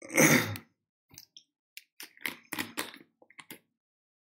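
A short loud burst of breath-like, partly voiced noise at the start, then scattered clicks and crinkles of a plastic water bottle being picked up and handled.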